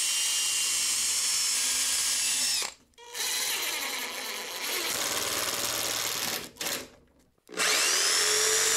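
Cordless drill boring through a steel tube frame, its whine dropping as it finishes, then a Makita impact driver running a screw in. Near the end a corded jigsaw motor spins up and runs steadily.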